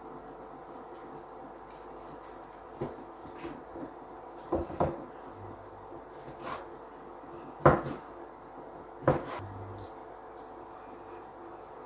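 Large kitchen knife cutting cooked octopus on a wooden cutting board: about half a dozen irregular knocks of the blade striking the board, the loudest a little past halfway. A faint steady hum runs underneath.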